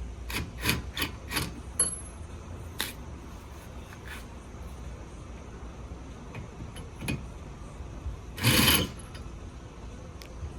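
Hand wrench working on a car's wheel lug nuts: a quick run of about five short rasping strokes, then scattered single clicks, and a louder half-second rasp about eight and a half seconds in.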